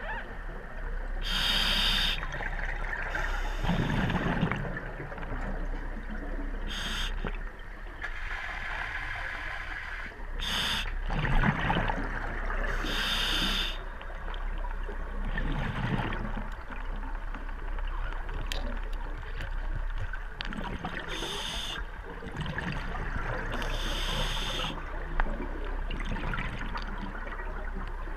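Scuba diver breathing through a regulator underwater: several short hissing inhalations, with bubbling, gurgling exhalations in between.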